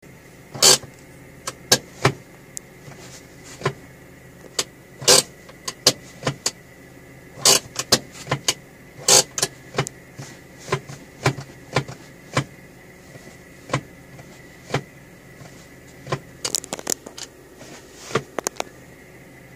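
Irregular sharp clicks and knocks inside a parked car's cabin, ending in a quick run of ratcheting clicks near the end as the hand-operated parking brake lever is worked. A faint steady high tone sits underneath.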